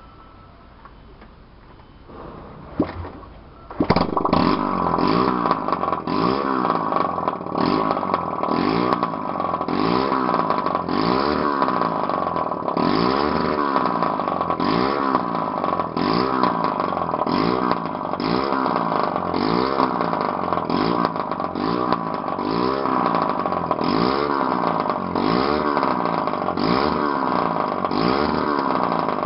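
Honda Titan trail motorcycle's single-cylinder four-stroke engine running with its exhaust pipe removed, straight out of the open port. It starts about four seconds in and is then revved over and over, the pitch rising and falling about once a second.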